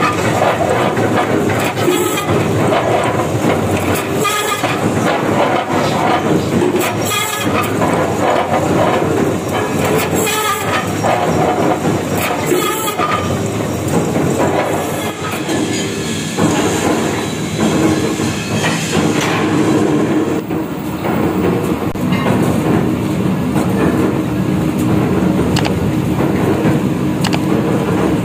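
Drill press cutting into a mild-steel truck rim plate: loud, continuous machine and cutting noise with sharp metallic knocks every two to three seconds for the first dozen seconds. After about twenty seconds it settles into a steadier hum.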